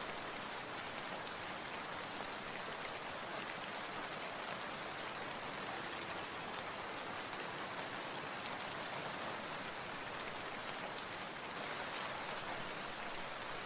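Steady rain falling, an even hiss of many drops with no break or change.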